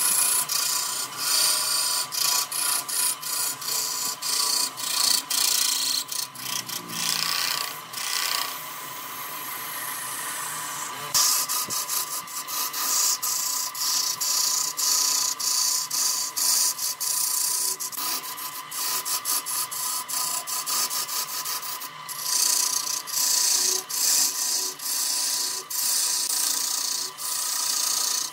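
Turning tool cutting into a spinning segmented wood blank on a wood lathe: a rough, rasping scrape in quick uneven strokes, over a steady whine. From about eight to eleven seconds in the cutting gives way to a smoother, quieter hiss.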